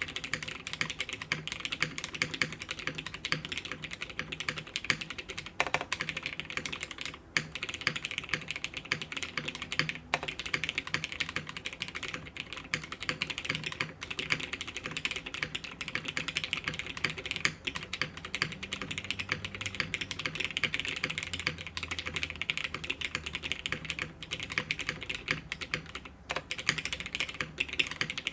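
Continuous fast typing on a Bias v1 prototype mechanical keyboard: lubed Nixie switches in a top-mounted aluminium half plate, with DCS keycaps, giving a dense stream of keystroke clacks. There are brief pauses about 7 seconds in and again near the end.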